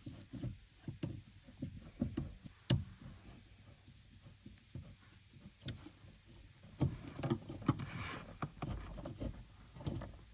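Faint handling noises of a tool working a hose clamp off a fuel hose on top of the fuel tank: scattered light clicks and knocks, with one sharper click a little under three seconds in and a busier stretch of small knocks later on.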